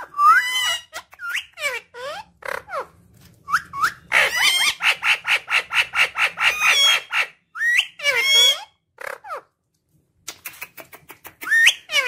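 Indian ringneck parakeet calling. Short whistled chirps sweep up and down, then a fast run of repeated chattering notes lasts about three seconds, followed by more scattered chirps near the end.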